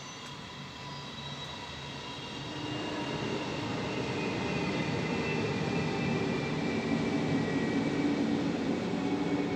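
A passing vehicle's engine noise, growing steadily louder over several seconds, with faint whining tones slowly falling in pitch.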